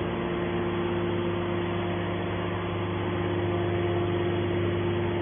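Hydraulic aluminium-can baler's power unit, its electric motor and pump running with a steady hum.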